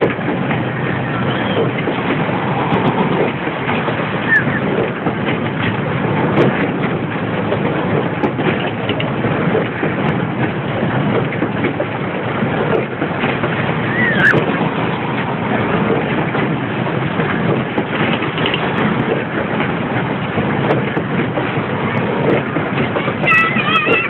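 Steady loud din of small kart-style cars running on a track, with a brief high gliding squeak about a third of the way in and a short wavering high tone near the end.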